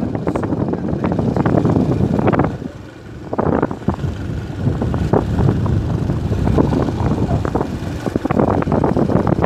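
Wind buffeting the microphone of a phone carried on a moving vehicle, over rumbling road and engine noise. It eases briefly about three seconds in, then picks up again.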